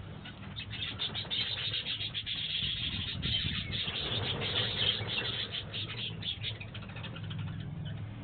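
A flock of budgerigars chirping in a dense, continuous chatter of short chirps, with a low steady hum underneath.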